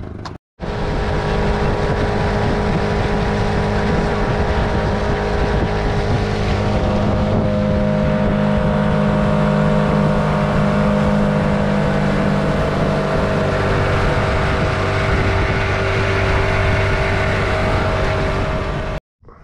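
Outboard motor running steadily with the boat underway at speed, over a rush of wind and water noise. It cuts in about half a second in and stops abruptly near the end.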